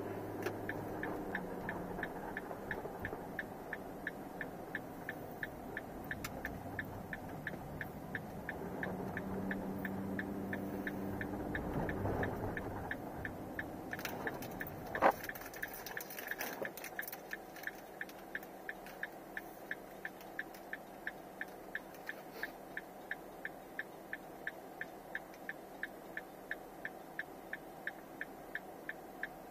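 A car driving with engine and road noise that falls away about halfway through as it comes to a stop, with one sharp knock just before. A steady ticking about twice a second runs on throughout at an even level.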